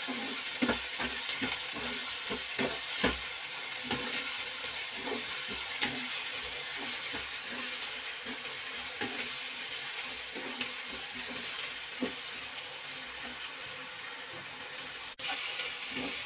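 Chopped onions sizzling steadily in hot oil in a non-stick kadai while being fried toward browning. A wooden spatula scrapes and knocks against the pan as they are stirred, and the sound breaks off briefly near the end.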